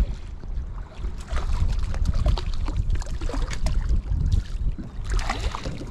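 Wind buffeting the microphone with a steady low rumble, while small choppy waves lap and splash irregularly against the side of a small boat.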